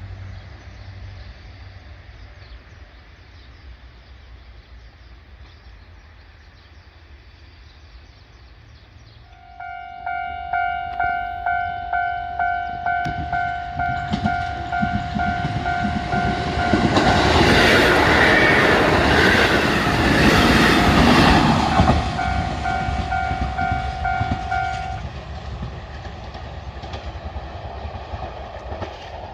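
A level crossing warning bell starts dinging about twice a second, a third of the way in. Then a Kotoden electric train rumbles over the crossing, wheels clacking on the rails, loudest in the middle of the pass. The bell stops a little after the train has gone by, leaving its fading rumble.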